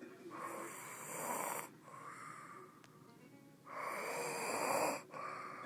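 A sleeping person snoring: two long snores of about a second and a half each, the second louder, with softer breaths between them.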